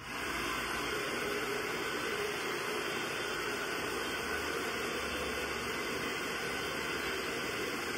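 AGARO HD1120 2000-watt professional hair dryer switched on at full fan speed, running with a steady rush of air.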